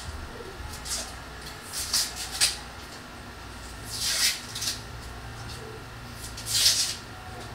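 A handful of short rustling handling noises during food prep, the loudest near the end, over a faint steady hum.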